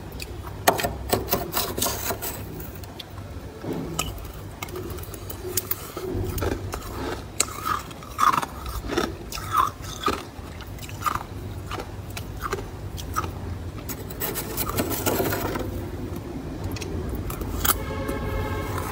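Thick freezer frost being scraped, with irregular crunching and scratching strokes as the ice breaks away. A short squeak comes near the end.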